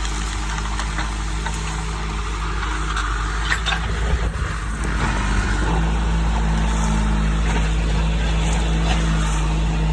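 John Deere 310D backhoe's diesel engine running steadily, with a few sharp knocks about three and a half to four and a half seconds in; about halfway through the engine revs up a little and runs slightly louder.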